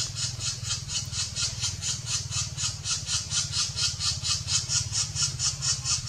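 Black-naped woodpecker nestling begging from the nest hole: a fast, even series of short, high squeaky calls, about five a second, over a low steady hum.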